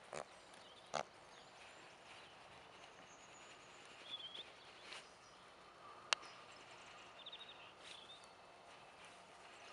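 Faint outdoor sound of a pony being ridden at a walk on sand, with two short snorts near the start, a single sharp click about six seconds in, and a few small bird chirps.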